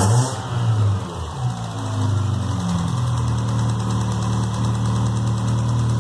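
Fiat Marea 1.8 16v inline-four engine blipped a few times, its pitch rising and falling, then settling to a steady idle about three seconds in. The owner films it because of a noise in the engine.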